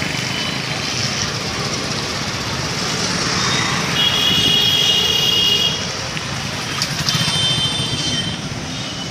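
Street traffic dominated by small motorcycle engines running and passing. A vehicle horn sounds about four seconds in and holds for nearly two seconds, then sounds again, weaker and shorter, about three seconds later.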